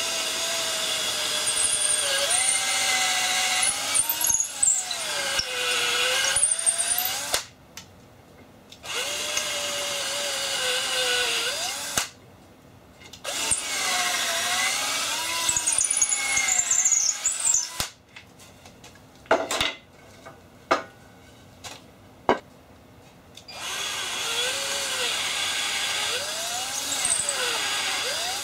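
Power drill boring deep pilot holes into wood, run in four long stretches with short stops between and a few quick blips near the middle, its motor pitch dipping and rising as the bit is pushed in and pulled back out to clear the chips from the hole.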